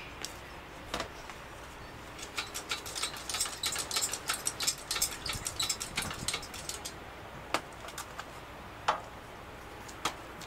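Quick metallic clicking and rattling for several seconds, then a few single clicks: the engine hoist's chain and fittings as the engine and transmission hanging from it are moved.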